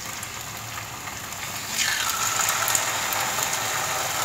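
Garlic sizzling in hot olive oil in a frying pan, turning louder and brighter about two seconds in as salmon fillets are laid into the oil, with light crackles.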